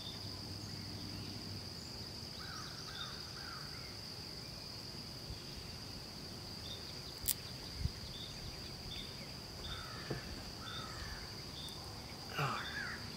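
Crickets chirping steadily in a high, even drone, with a few short bird chirps. About seven and eight seconds in come a sharp click and a knock, from hands working at the car battery's terminal post.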